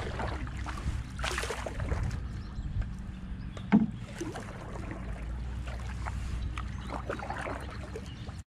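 Paddle strokes splashing and dripping in the water beside an Old Town Penobscot 164 canoe, over a steady low rumble of wind on the microphone. A single sharp knock about four seconds in is the loudest sound, and the audio cuts out just before the end.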